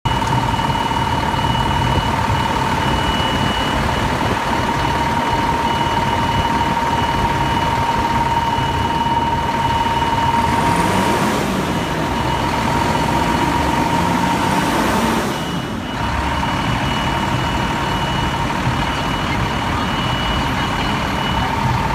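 Parked fire ladder truck's diesel engine idling: a steady rumble with a constant high tone over it, which drops out briefly about two-thirds of the way through.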